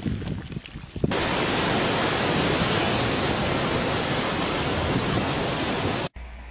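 Steady, even rushing noise at a lava ocean entry, where lava pours off sea cliffs into breaking surf and a white steam plume. It starts suddenly about a second in and cuts off near the end.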